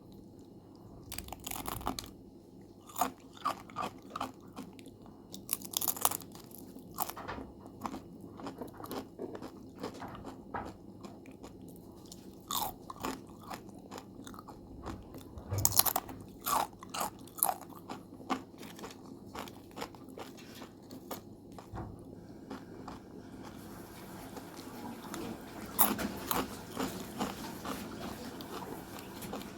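A person biting into and chewing crispy homemade potato chips: an irregular run of sharp crunches between softer chewing. The loudest bites come about six seconds in, around sixteen seconds and near twenty-six seconds.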